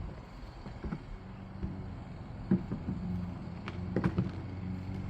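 Handling knocks and clicks as the dorsal fin piece of a shark decoration is pushed onto its seam and fitted into place. There are a few separate knocks, the loudest about halfway through, over a steady low hum.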